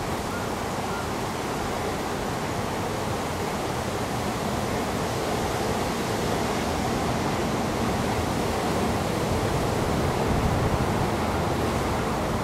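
Steady, even roar of distant road traffic. Near the end an approaching motorcycle's engine starts to come through, slightly louder.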